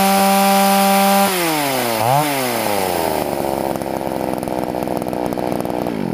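Poulan two-stroke chainsaw engine, warmed up to running temperature, held at high revs, then dropping back about a second in, given one quick blip of the throttle, and settling to a steady idle. It winds down right at the end.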